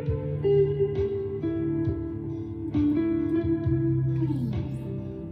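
Chapman ML3 Pro Traditional electric guitar with Seymour Duncan Hot Tele pickups played in an ambient style: picked single notes that sustain and overlap, with one note gliding down in pitch near the end.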